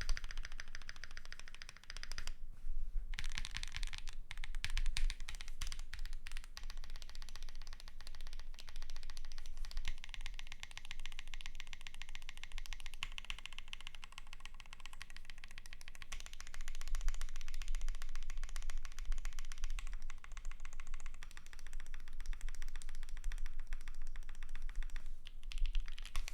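Continuous typing on a custom 60% mechanical keyboard with HxG White Tactile switches on an aluminium plate and PBT keycaps: a dense clatter of keystrokes, with a brief pause about two seconds in.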